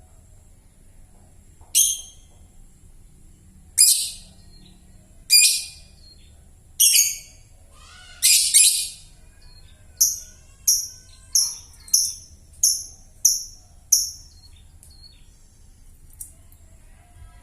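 Young, recently weaned lovebird calling in loud, sharp chirps: a few spaced calls, then from about ten seconds in a quicker run of seven shorter chirps, about three every two seconds. The voice is still hoarse and rough, as a bird this young has not yet settled its call.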